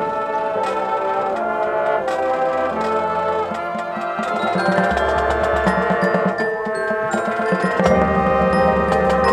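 Marching band music with the mallet percussion prominent: quick, evenly struck pitched notes that sound like marimba and glockenspiel. Deep sustained low notes come in about five seconds in.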